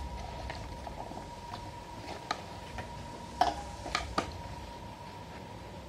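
A few light clicks and knocks from a perforated stainless-steel basin of blanched cauliflower florets being handled, the loudest cluster about three and a half to four seconds in, over a faint steady tone.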